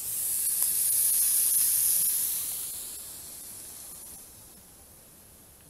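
Food sizzling as it fries in a pan: a high hiss, loudest over the first two seconds, then fading away.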